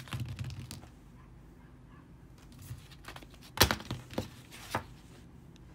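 Small art supplies and their paper packaging handled on a desk: a few light knocks and clicks as items are set down, with paper rustling. The loudest knock comes about three and a half seconds in.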